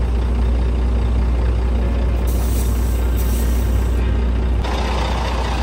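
Truck diesel engine idling with a steady low hum, and a hiss of compressed air in two short pulses about two seconds in, typical of the trailer air lines being coupled. The sound changes abruptly near the end.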